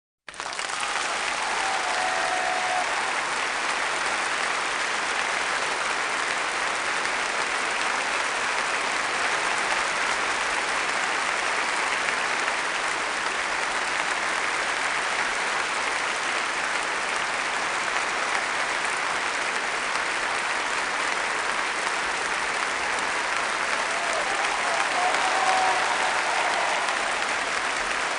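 Long, steady applause from a large audience in a hall, many people clapping at once; it starts suddenly and holds at an even level.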